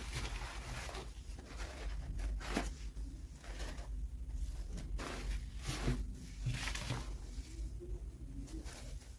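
Hands handling toy packaging: short, irregular rustling and scraping sounds, like plastic and cardboard being torn and pulled open.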